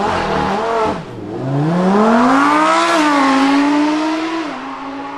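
Lamborghini Huracán EVO Spyder's 5.2-litre naturally aspirated V10 revving once, then accelerating away from a standstill. The pitch climbs for about two seconds, dips near three seconds in, and steps down again about four and a half seconds in, then holds steady.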